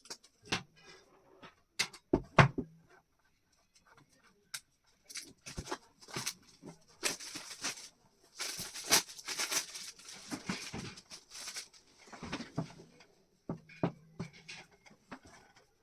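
Product packaging being opened and handled: scattered clicks and taps, then several seconds of rustling and crinkling about midway, with a few more taps near the end.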